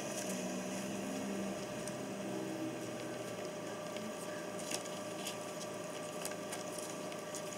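Puppies eating dry kibble from a bowl: scattered small crunches and clicks, mostly in the second half, over a steady electrical hum.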